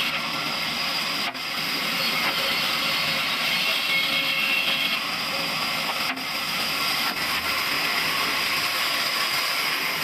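Band saw ripping a wooden board into slats: the blade cutting through the wood makes a steady, dense hiss, dipping for a moment twice.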